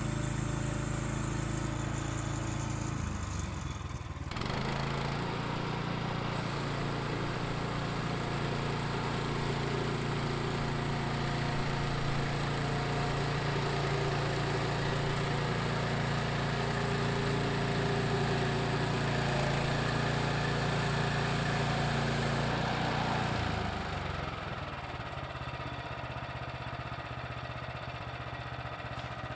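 Gasoline engine of a portable bandsaw sawmill running steadily while milling a log. Its tone changes abruptly about four seconds in and again near the end.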